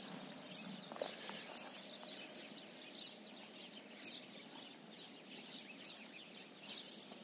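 Horse grazing: faint, irregular tearing and munching of grass, roughly once a second.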